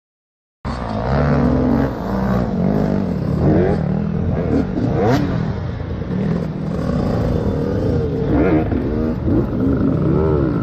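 Several off-road dirt bike engines revving up and down unevenly over one another, with some clatter. The sound cuts in abruptly after a moment of silence.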